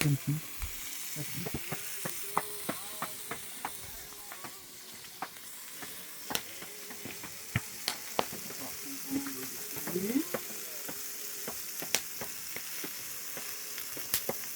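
Hamburger patties sizzling in a large metal pan, a steady frying hiss, with scattered sharp clicks and taps of a utensil against the pan.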